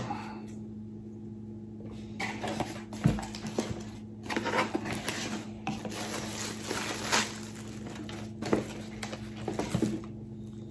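A cardboard shipping box being opened by hand: scratching and tearing at the tape from about two seconds in, a knock about three seconds in, then plastic packaging crinkling and rustling as the flaps are pulled back and a boxed phone is lifted out, with a few sharp clicks near the end.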